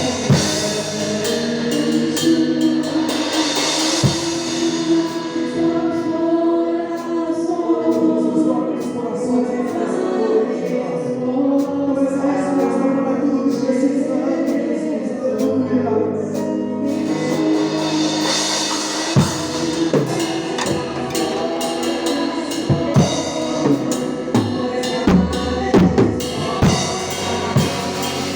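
Christian worship band music: voices singing over a drum kit. The drums ease back for a sustained stretch in the middle and come back with strong hits about two-thirds of the way through.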